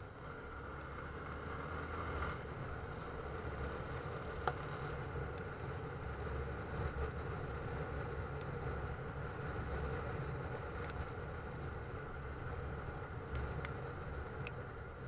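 Steady engine and road noise of a moving vehicle, with a few faint sharp ticks.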